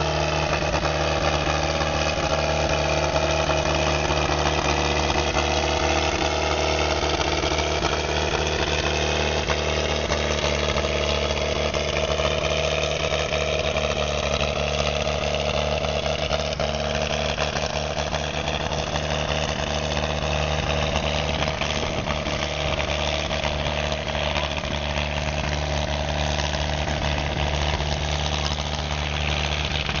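Old motor grader's engine running steadily, its pitch drifting slowly up and down.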